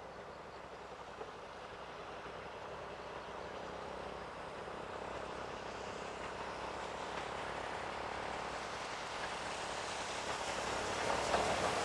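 C58 239 steam locomotive approaching while working hard, its exhaust and running noise growing steadily louder as it nears.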